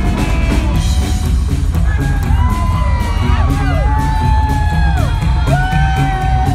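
A live rockabilly band plays throughout: slapped upright bass, electric guitar and drums. From about two seconds in, audience members close by whoop over the music in long, held calls that swoop up and drop away.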